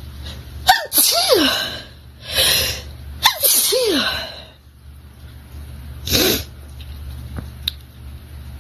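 A woman sneezing twice during a long sneezing fit. Each sneeze is a sharp burst that trails off in a falling voiced cry, the first about a second in and the second about three seconds in, with breathy bursts between them and again near six seconds.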